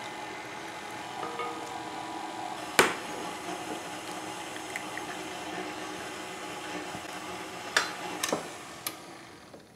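KitchenAid tilt-head stand mixer running steadily at low speed, beating eggs into creamed sugar and oil, its motor winding down near the end. A sharp crack of an egg on a glass bowl about three seconds in, and a few glass clinks shortly before the motor stops.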